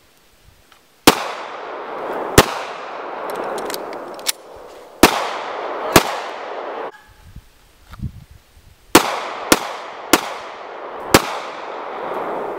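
Eight shots from Glock 43 9mm subcompact pistols, each ringing out with a long echo: two, then two more, then a quicker run of four near the end.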